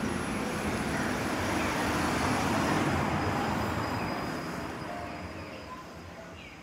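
Outdoor street noise: a steady rushing that swells toward the middle and then fades away near the end.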